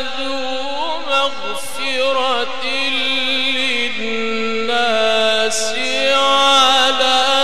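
A man reciting the Quran in the melodic mujawwad style: one long sung phrase of held notes with wavering ornaments, unbroken, its pitch stepping down about four seconds in.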